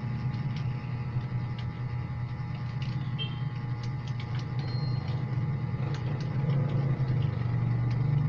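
Computer keyboard keys clicking at an irregular typing pace, over a louder steady low hum.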